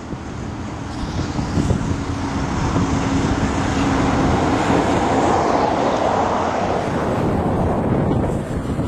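Road traffic with wind on the microphone: a passing vehicle's noise swells through the middle and fades again, with a faint steady engine tone for a couple of seconds.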